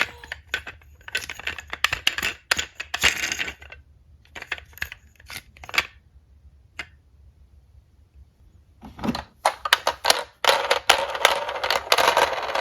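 Small diecast metal toy cars clicking and clattering against each other and a hard surface, in bursts of quick light clicks. There is a lull with only a few isolated clicks, then a soft thump about nine seconds in and a longer run of rattling.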